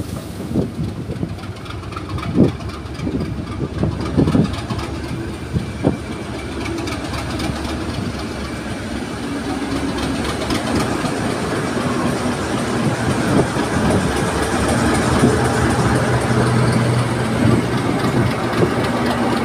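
A passing train of rail tank wagons knocking and clanking over the track. From about seven seconds in, the tail-end Class 37 diesel locomotive's English Electric engine comes alongside, running steadily and growing louder.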